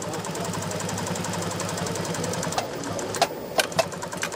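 JUKI LU-2810A industrial lockstitch sewing machine with edge trimmer, running fast and steadily as it sews and trims the fabric edge, then stopping about two-thirds of the way through. A few sharp clicks follow near the end.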